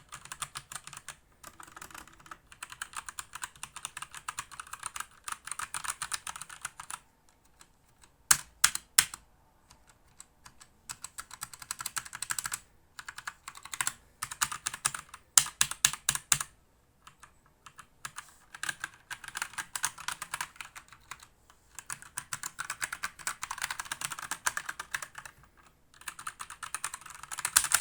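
Typing on a Krux Atax Pro mechanical keyboard with Gateron Brown switches: quick runs of keystrokes with short pauses between them, and a few louder single strokes about eight seconds in.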